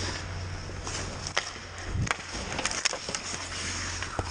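Ice hockey play on the ice: about five sharp clacks of sticks and puck, with skate blades scraping, over a steady low rink hum.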